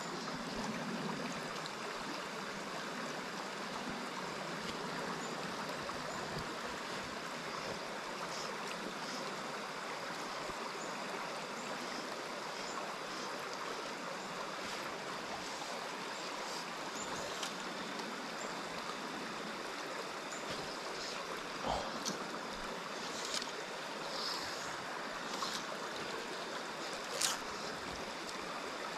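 A small stream's water running steadily over rocks, with a few short faint clicks about two-thirds of the way through and near the end.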